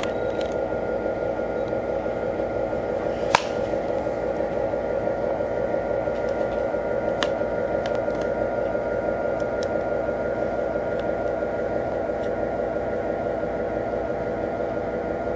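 O-scale MTH RailKing Aerotrain model train running slowly, with a steady mechanical drone from its motor and Proto-Sound 2 locomotive sound, and one sharp click about three seconds in.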